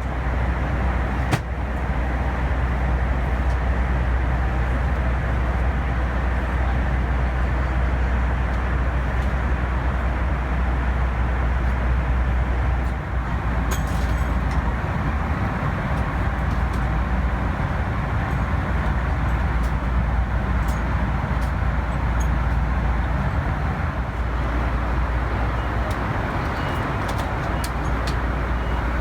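Steady cabin noise of a Boeing 747-400 in flight: a deep rumble of engine and airflow noise, stepping up slightly about a second in.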